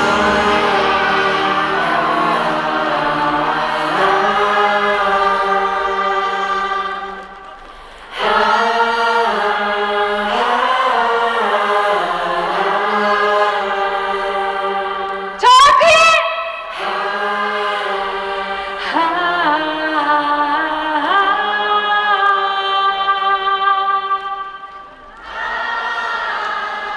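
Live vocals with long held, wavering sung notes that break off briefly twice, with one short loud swooping sound about halfway through.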